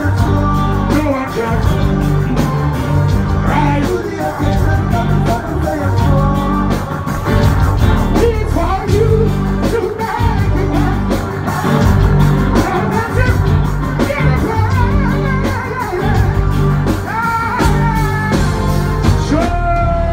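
Live reggae band playing a heavy, repeating bass line with drums and keyboards, a male singer chanting over it, heard from within the audience.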